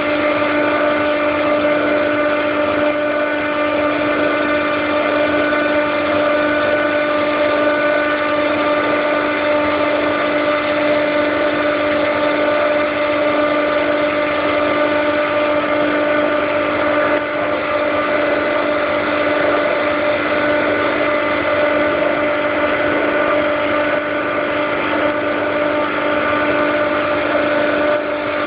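Compressor of a McQuay/Daikin EWLDJ235-SS chiller running steadily: an even hum with one strong tone and many higher tones stacked above it. This running noise is what the owner calls a strange sound from the compressor.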